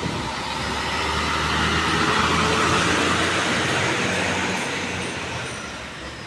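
Large intercity diesel bus driving slowly past at close range. The engine and tyres swell to their loudest about two to three seconds in, then fade as it pulls away.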